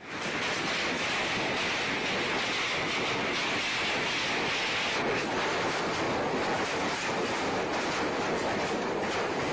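Hail pelting an iron roof: a loud, dense, steady clatter of ice pellets striking metal.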